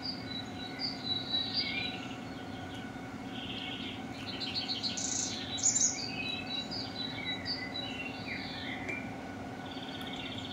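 Birdsong: several birds chirping and trilling over a steady low hum.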